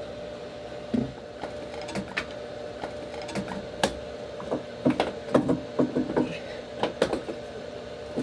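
Irregular metallic knocks and clinks as a heavy starter motor is handled and offered up against a big-block marine engine to test its fit. A steady hum runs underneath.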